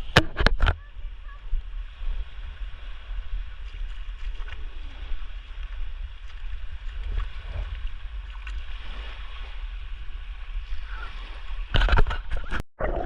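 Moving water sloshing and gurgling, under a steady low rumble, with a few sharp splashes at the start and a louder burst of splashing near the end.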